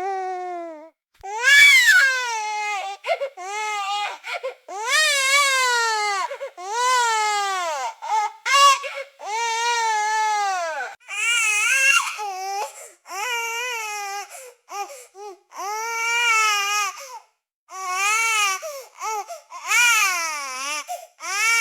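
Baby crying and screaming: a run of loud, high-pitched wails, each rising and falling over a second or two, with short catches of breath between them.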